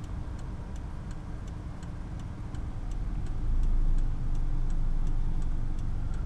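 A car's turn-signal indicator clicking steadily, about three clicks a second, heard inside the cabin over the low rumble of the car. The rumble grows louder about three seconds in.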